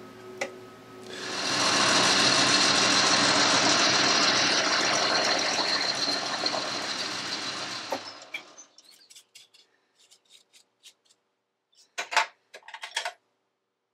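Boxford metal lathe running: it spins up about a second in, runs steadily for about six seconds, then stops. Afterwards come a few light clicks and two sharper knocks near the end.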